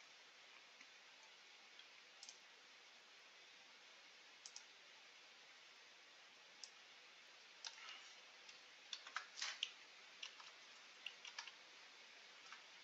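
Faint, scattered computer mouse clicks over near-silent room tone, single and paired, with a quick run of several clicks about nine seconds in.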